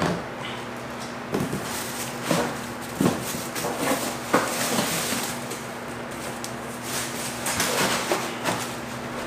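Grill parts and packaging being handled: rustling with several light knocks and clunks, over a steady faint hum.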